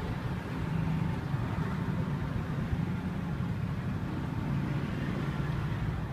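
Street traffic noise, led by a motor engine running steadily with a low drone.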